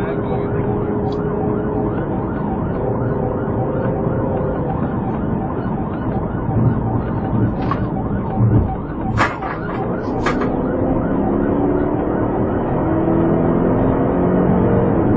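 Police car siren sounding over engine and road noise, with three sharp clicks about halfway through.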